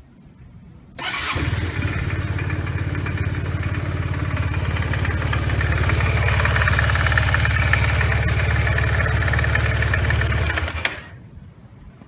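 Yamaha TMAX scooter's parallel-twin engine started about a second in, then idling steadily with a steady high whine over the engine note, and shut off near the end. This is the abnormal noise the owner is showing.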